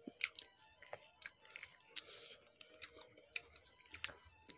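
A person eating rice and smoked chicken by hand: close chewing with irregular wet clicks and smacks, the sharpest one about four seconds in.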